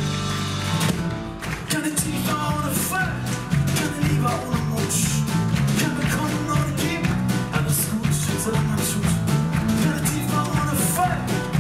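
Live band playing a pop song on grand piano, drum kit and electric bass, with sung vocals.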